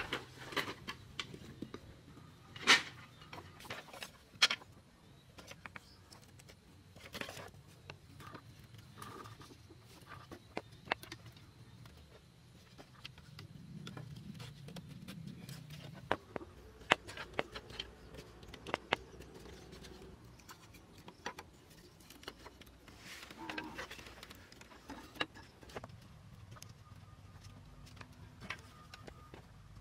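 Bamboo poles and slats being handled and lashed together: scattered knocks, taps and clicks of bamboo on bamboo, with two louder sharp knocks a few seconds in.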